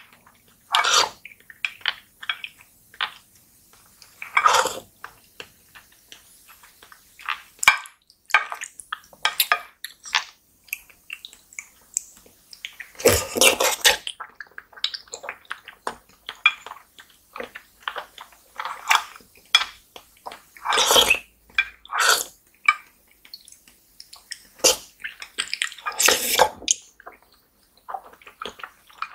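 Close-up eating of soft fruit jelly and pudding: wet slurps and sucking off a spoon, with lip smacks and small clicks of the spoon in a glass dish. Three longer, louder slurps stand out, about 13 s, 21 s and 26 s in.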